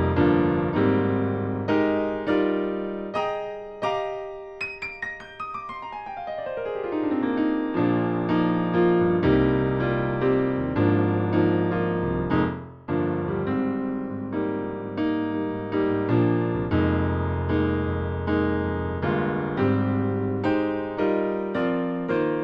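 Casio Privia PX-S7000 digital piano playing a factory keyboard preset: chords over held bass notes, each note dying away after it is struck, with a quick run sweeping down the keyboard about five seconds in.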